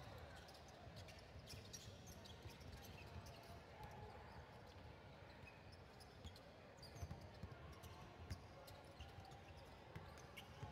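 Basketball being bounced and players' shoes thudding and clicking on a hardwood gym floor during play, faint and scattered, with a couple of sharper knocks about seven and eight seconds in. Faint voices carry across the gym.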